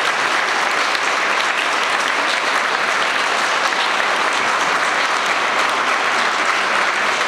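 Audience applauding steadily, the clapping of many hands going on without a break.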